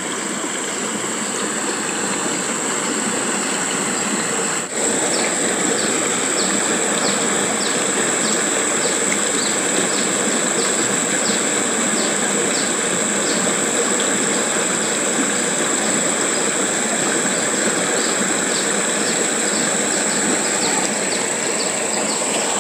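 Steady rush of water flowing into a small pond, under a constant high insect drone. From about five seconds in, a short chirp repeats about twice a second.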